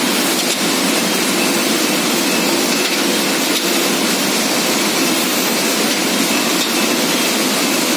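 Starch mogul jelly candy production line running: a steady, even machine noise at a constant level, with faint high tones.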